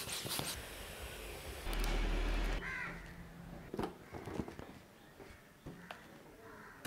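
A blue plastic hand pump pushing air into a latex balloon in rushing strokes, followed by the stretched rubber of the inflated balloon squeaking as it is handled, with a few light handling clicks.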